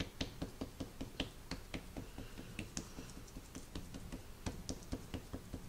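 Fingertips patting dry seasoning rub into thin raw pork chops on a wooden cutting board: quick, light, soft taps, several a second.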